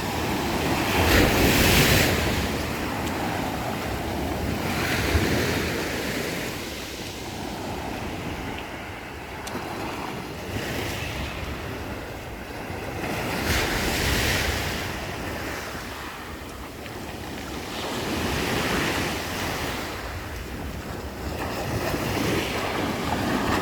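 Black Sea waves breaking and washing on the shore, the surf swelling and falling back several times at uneven gaps of a few seconds.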